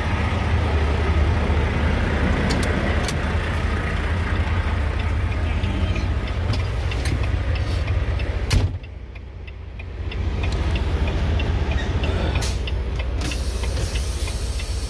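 Semi-truck diesel engine idling, heard from outside next to the truck. About eight and a half seconds in, a cab door slams shut and the engine drops to a muffled hum. The sound builds back up over the next couple of seconds, with light regular ticking through the second half.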